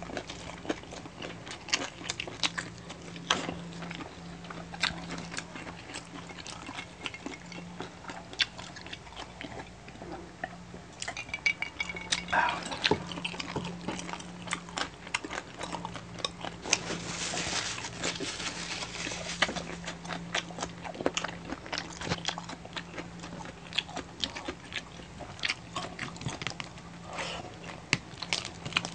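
Close-miked eating sounds from two people eating crispy pork knuckle with rice and cucumber by hand: chewing, lip smacks and frequent short crunches, with a faint steady low hum underneath.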